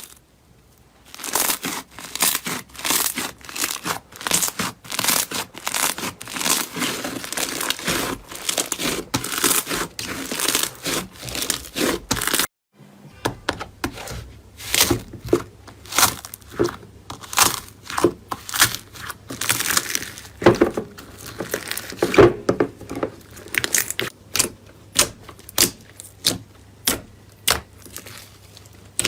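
Slime being squeezed and stretched by hand, making dense crackling and crinkling. After a cut about twelve seconds in, a second clip has sharper, separate pops and clicks over a steady low hum.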